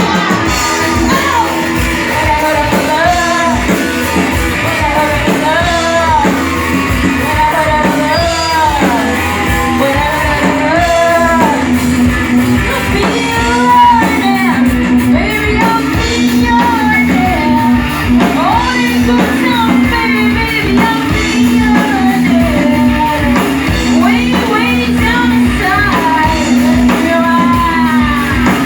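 Rock band playing live: a singer carrying a melody over amplified guitar, a steady held bass note and a driving drum beat.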